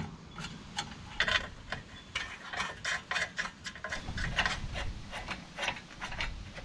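Irregular light clicks and rubbing of a small screw and metal parts being handled and fitted by hand at a lawnmower engine's shroud, over a low handling rumble.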